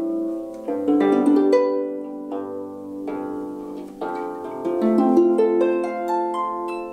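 A Marini Made 28-Bass Lap Harp plucked by hand: single notes and chords that ring on and overlap, with fresh groups of plucked notes about one, three, four and five seconds in.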